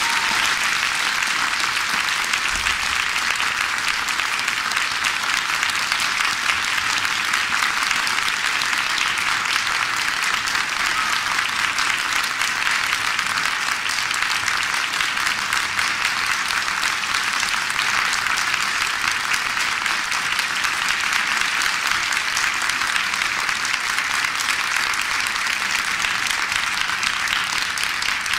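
Theatre audience applauding, a steady dense clapping that holds at an even level.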